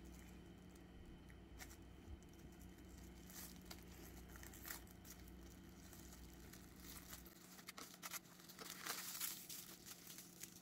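Faint crinkling of plastic cling wrap being rolled around a sandwich and handled, a little louder near the end.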